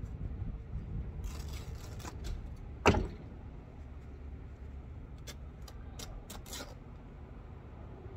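Rustling and handling noises as old upholstery padding and fabric are pulled from a sofa frame, with one sharp knock about three seconds in and a few lighter clicks later, over a low steady rumble.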